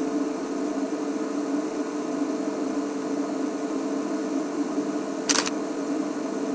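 A steady low hum, with one brief sharp noise about five seconds in.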